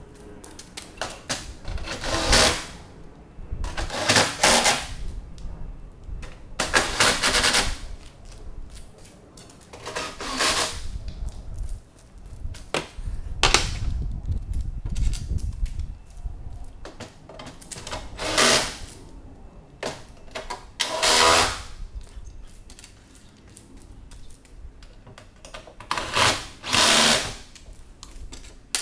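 A hand-held tool run in short bursts, about nine of them, each under a second and a few seconds apart, during work on an aircraft engine's magneto mounting. Low knocks and handling noise fill the gaps.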